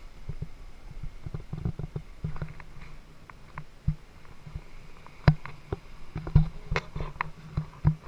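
Irregular soft thumps and clicks of a person walking over a paved path, with the knocking of the camera they carry. The louder knocks come in the second half.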